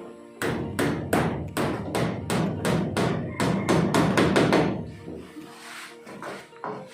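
Hammer driving nails into wood for a ceiling repair: a quick run of sharp blows, about four a second, that stops about two-thirds of the way through.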